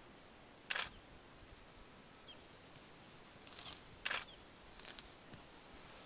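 A rhinoceros grazing in dry grass: a few short, crisp tearing crunches as it crops the grass, one about a second in and a cluster three to five seconds in.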